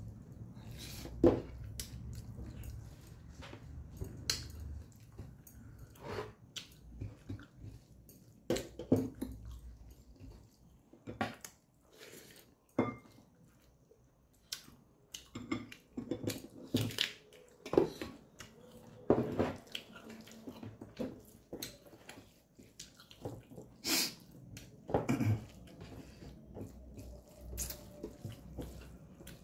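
Close-up eating sounds: chewing and wet mouth smacks of someone eating rice and dried-meat curry by hand, in irregular sharp clicks, with light clinks from a metal plate.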